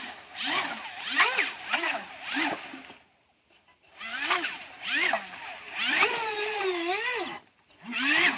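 The 2300kv brushless outrunner motor of an RC boat whining up and down in quick throttle bursts, about two a second, with one longer, wavering rev near the end. It cuts out to near silence for about a second roughly three seconds in, and again briefly shortly before the end.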